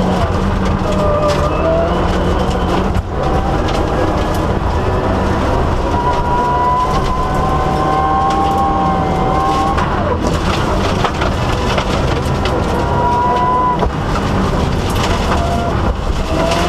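Mitsubishi Lancer Evolution VIII rally car's turbocharged four-cylinder engine running hard at stage pace, heard from inside the cabin, with steady loud road noise and scattered clicks of stones from a gravel surface. A whine rises and falls in pitch through the middle.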